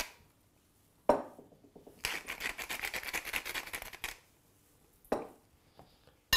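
Hand-held pepper mill grinding over a salad bowl: a quick crackling ratchet for about two seconds, with a knock before and another after. Near the end a sharp clink with a short ring, a metal spoon striking the glass bowl.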